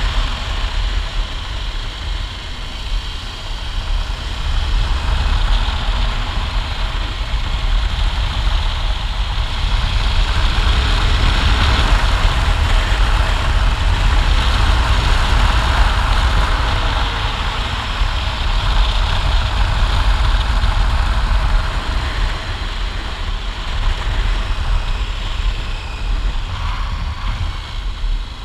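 Adventure motorcycle underway on a paved road: its engine runs steadily under a continuous rush of wind noise, growing louder around the middle.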